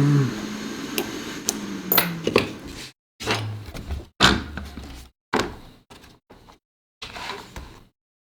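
A string of short knocks and clatter of small tools and parts being handled and set down on a workbench, spaced out with pauses and growing sparser toward the end.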